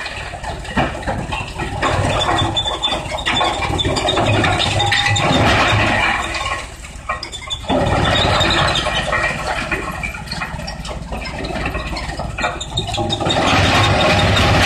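Large industrial wood crusher running under load, a loud mechanical din with scattered knocks and a high squeal. The noise dips briefly about seven seconds in, then picks up again.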